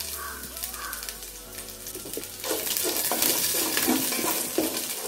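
Sliced garlic sizzling in hot sesame oil in a stainless steel pot, with ginger and mustard seeds. About halfway through it gets louder as a wooden spatula starts stirring, with repeated scraping strokes against the pot.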